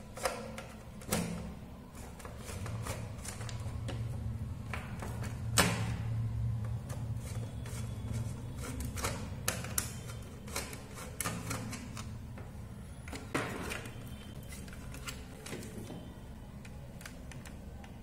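Small screwdriver undoing the screws of a plastic power extension box: scattered sharp clicks and taps of metal on screw heads and the plastic casing, with a low hum underneath for a while in the middle.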